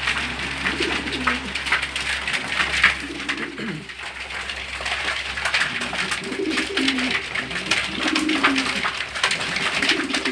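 A flock of domestic pigeons cooing repeatedly while feeding, over a dense patter of sharp clicks and taps from beaks pecking grain off cardboard, with some wing flapping.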